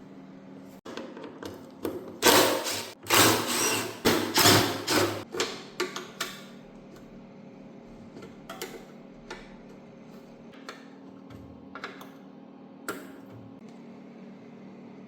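Tools at work removing bolts from a small ATV during teardown: a run of short, loud mechanical bursts in the first half, then scattered clicks and clinks of tools and parts, over a steady low hum.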